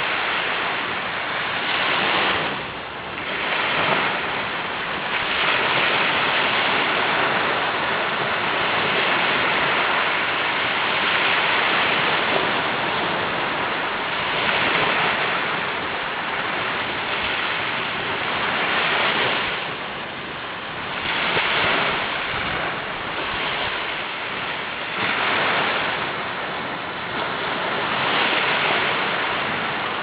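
Sea waves breaking and washing on the shore, a steady rush that swells and eases every few seconds.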